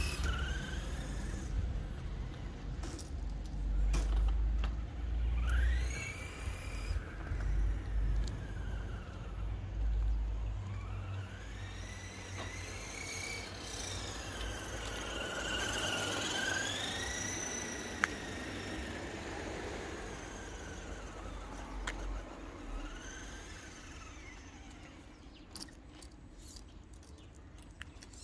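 Electric motor and gearbox of a radio-controlled scale off-road truck whining, the pitch rising and falling again and again as it speeds up and slows down. A low rumble runs under it in the first half, and there is a single sharp click about two-thirds through.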